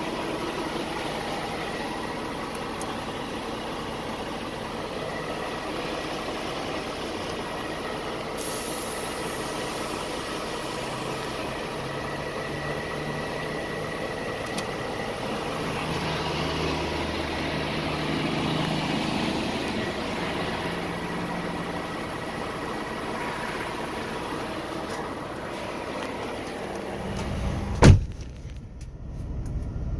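Heavy truck engine idling steadily, with one loud thump near the end.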